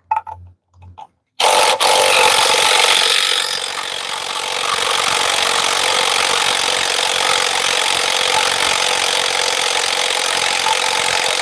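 Impact gun hammering continuously on an E12 socket for about eleven seconds, starting about a second and a half in, to break loose a Loctite-held TCM bolt on a DT12 automatic transmission.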